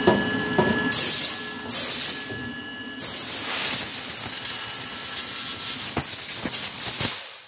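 Compressed-air blow gun hissing: two short blasts, then one long blast of about four seconds, blowing chips and coolant off a freshly machined 8670 steel knife blank held in the mill fixture.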